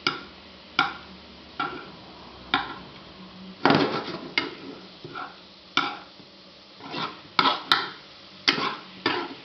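A metal spoon stirring banana slices in syrup in a non-stick frying pan. It clicks and scrapes against the pan irregularly, roughly once a second, with a few longer scrapes.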